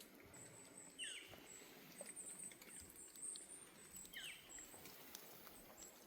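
Faint, quiet forest ambience: a bird gives two short downward-sliding calls about three seconds apart, over a thin high whine and scattered light ticks.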